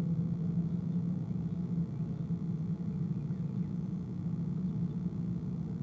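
Steady low background hum and rumble, even throughout, with no distinct call standing out.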